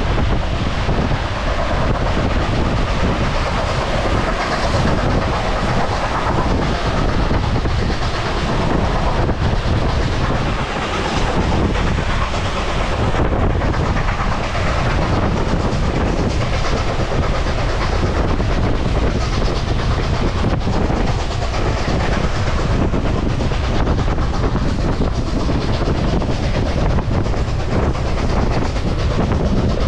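A train running along the rails, a steady noise that goes on without a break.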